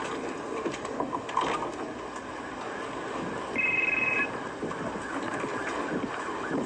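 Tornado winds and rain roaring against a house, a dense, steady rush. About halfway through, a short two-tone electronic ring sounds once.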